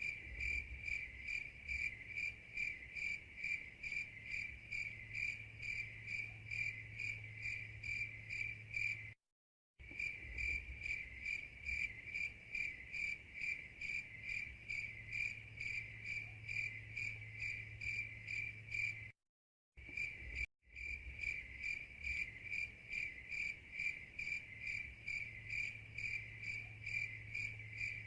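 Crickets chirping in steady, evenly spaced chirps over a faint low hum, as in an 'awkward silence' sound effect. The sound cuts out completely for a moment twice, about a third and two-thirds of the way through, where the recording loops.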